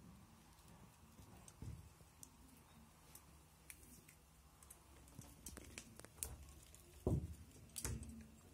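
Faint handling noise from a ceiling light being hung: small clicks and taps as its wires and canopy are worked over the ceiling hook, with a louder dull thump about seven seconds in and another just after.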